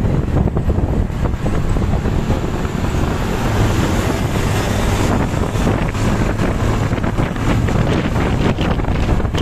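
Wind buffeting the microphone: a loud, steady rushing noise with a low rumble beneath it.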